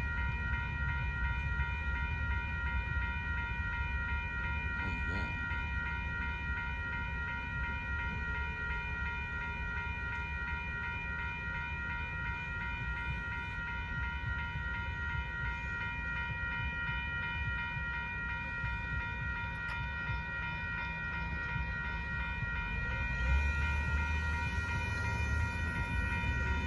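Railroad crossing warning bell ringing steadily over the low rumble of a slow freight train rolling past. The rumble grows louder in the last few seconds.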